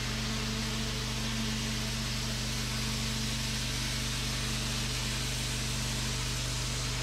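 A pressure washer runs steadily: the wand's jet hisses as it blasts the concrete, over the machine's steady low hum.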